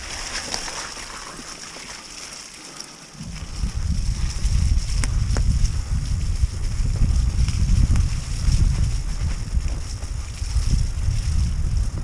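Mountain bike being ridden on a trail. From about three seconds in, wind buffets the bike-mounted or rider-worn camera microphone with a loud, uneven rumble, and there is one sharp click about five seconds in.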